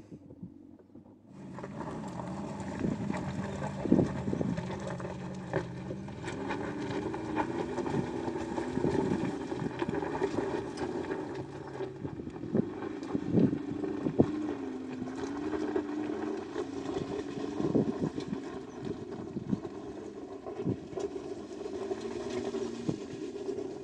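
Mercedes-Benz G500's V8 engine pulling the SUV up a steep, loose, rocky track, its pitch rising and falling with the throttle. Sharp clicks and knocks from stones under the tyres come through it. The sound starts about a second in.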